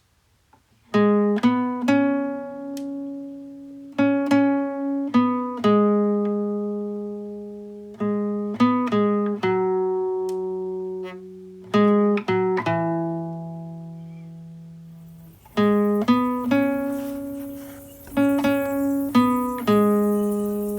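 Background music: a clean plucked guitar melody, notes ringing out and decaying in a phrase that repeats about every four seconds. A faint hiss comes in under it past the middle.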